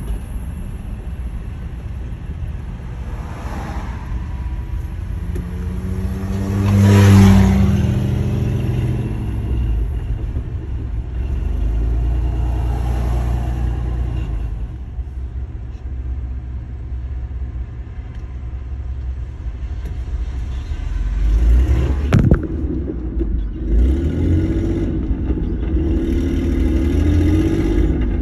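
Steady road and engine rumble heard from inside a moving vehicle's cabin. An engine swells louder about seven seconds in, there is a sharp knock a little past twenty seconds, and near the end an engine's pitch wavers up and down.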